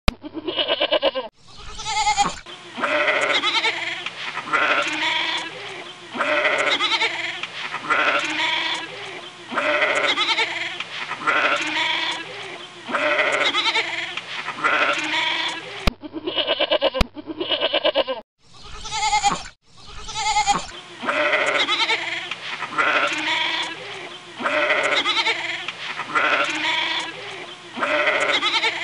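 A goat bleating over and over, about one call a second, opening with a brief steady pitched sound and a sliding call; the same run of sounds starts over about halfway through.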